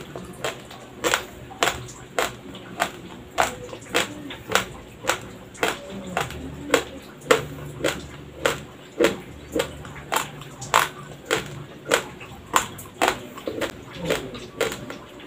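Dry raw Dinurado white rice grains being chewed close to the microphone, crunching in a steady rhythm of a little under two crunches a second.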